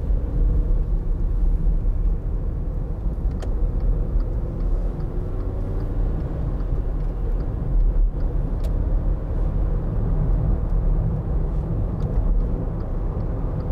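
In-cabin sound of a 2012 Volkswagen up! with its 1.0-litre three-cylinder engine, driving under way: a steady low engine and road rumble. A faint ticking of about two a second runs through the middle.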